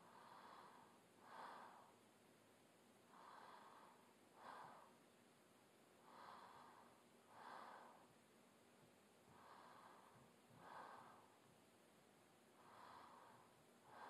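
A woman's slow, quiet sleep breathing, in and out about once every three seconds; each cycle is a softer, longer breath followed closely by a shorter, sharper one.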